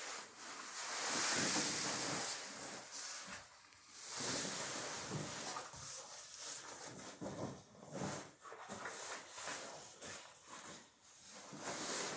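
Sailcloth of a freshly sewn mainsail rustling and crinkling as it is rolled up by hand, in uneven swells rather than a steady noise.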